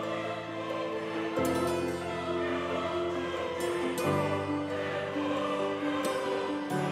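Background music: slow, sustained chords that change about every two and a half seconds.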